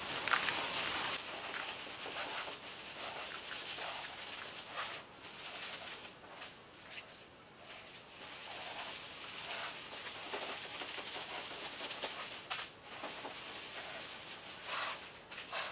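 A rolled-up pad of steel wool scrubbing softened paint and chemical paint stripper off a car panel: an uneven rubbing hiss that comes and goes with the strokes.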